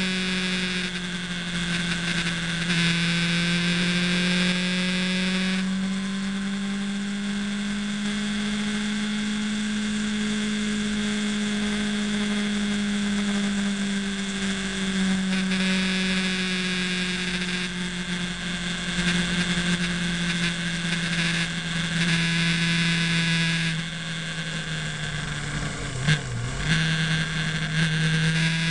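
Motorcycle engine running at a steady cruise, its note rising and falling slowly with the throttle, with wind noise rushing over the microphone. Near the end the engine note dips briefly with a couple of sharp knocks.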